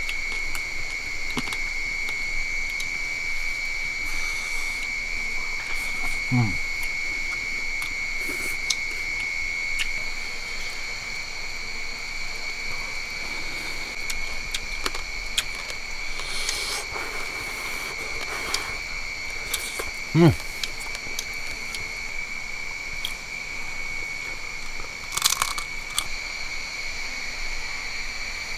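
Forest insects keep up a steady, high-pitched drone on one tone. A couple of brief sounds fall in pitch, about six and twenty seconds in.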